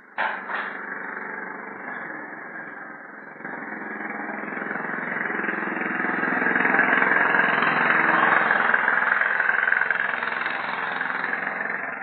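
SJRC F22 S3 PRO quadcopter's brushless motors and propellers spinning up suddenly, then running with a steady whir that steps louder about three and a half seconds in and keeps building. The motors are being warmed up after a long time without flying. The sound cuts off near the end.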